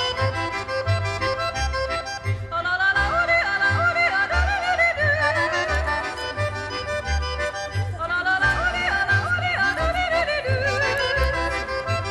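Alpine folk music: accordion over a steady oom-pah bass beat, with a yodeling voice coming in about two and a half seconds in, its pitch flipping up and down quickly.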